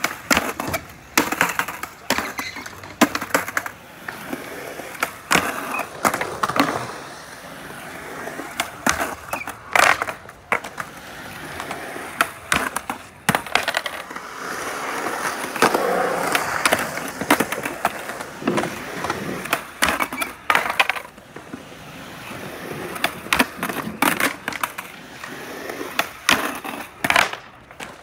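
Skateboards on a concrete skatepark: wheels rolling with a steady rumble, broken again and again by sharp clacks of boards popping, landing and clattering onto the concrete.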